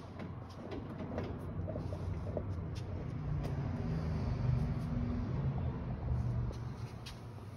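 Low mechanical rumble, like a machine or engine running, that grows louder through the middle and eases near the end, with a few light clicks and knocks.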